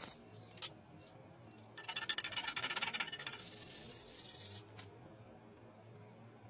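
A single click, then about two seconds in a quick run of rapid metallic clicking and clinking that lasts about a second and a half before fading to a faint trace.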